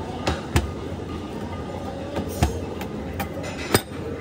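A handful of sharp knocks and clatters on a stainless-steel worktop over a steady commercial-kitchen hum. The loudest knocks come about half a second in and near the end.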